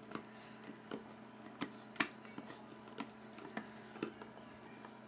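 Faint, irregular small metallic clicks and ticks, roughly two a second with one louder click about two seconds in, as a screwdriver turns out a folding knife's stubborn pivot screw.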